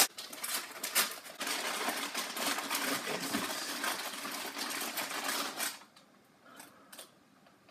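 Plastic bag crinkling as it is handled and unwrapped: a couple of sharp crackles at first, then about four seconds of dense crinkling, thinning to a few light crackles near the end.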